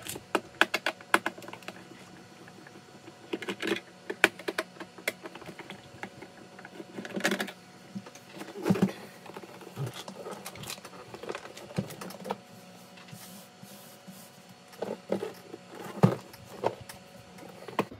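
Hand tools and an e-bike battery case being handled during disassembly: scattered clicks, taps and knocks in short clusters, with quieter gaps between.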